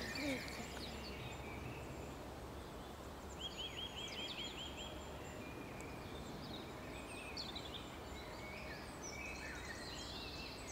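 Songbirds singing over a low steady outdoor background, with a quick trill of about seven short notes a few seconds in and more chirps and calls near the end.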